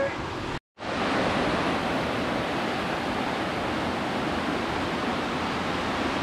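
A river's water rushing with a steady, even sound. It cuts out completely for a moment about half a second in.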